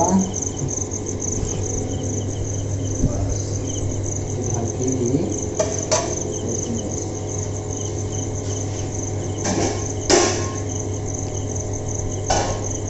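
Crickets chirping in a steady, high, pulsing trill over a steady low hum, with a few sharp knocks, the loudest about three-quarters of the way through.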